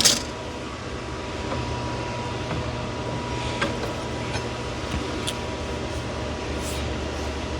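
Steady mechanical hum with a thin constant tone, opening with one sharp click and with a few faint ticks later on.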